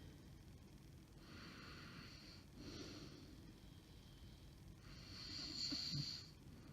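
A sleeping woman's noisy breathing between snores: hissing breaths about a second in and again around three seconds, then a longer, louder breath ending in a brief low snort. Her husband takes the snoring and breathing pauses for sleep apnea.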